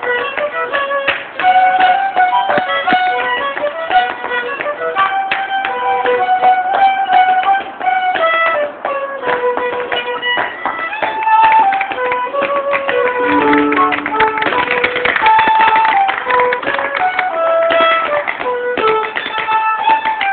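Lively instrumental dance tune with a fiddle-type melody, played continuously, with frequent sharp taps throughout.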